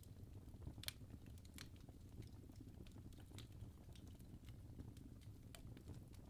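Faint wood fire crackling in a fireplace: irregular small pops and snaps over a low rumble, with one louder crack about a second in.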